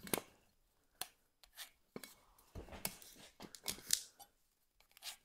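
Pencil drawing lines across the end of a walnut block along a metal center-finding square: a series of short scratchy strokes with light clicks of the square against the wood.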